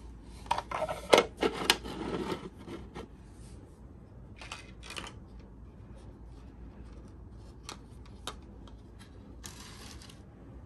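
3D-printed plastic parts handled and set down on a workbench: a dense run of clicks and knocks in the first two seconds or so, then scattered single clicks and a brief rustle near the end.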